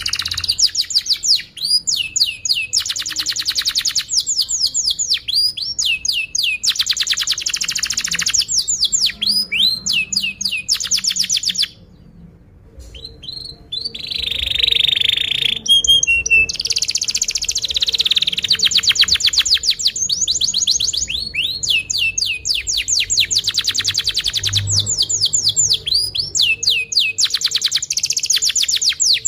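Domestic canary singing a long, loud song of rapid trills and sweeping chirps, with a short break about twelve seconds in.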